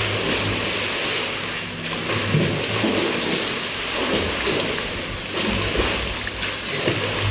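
Swimmers kicking and splashing in a pool: continuous splashing water.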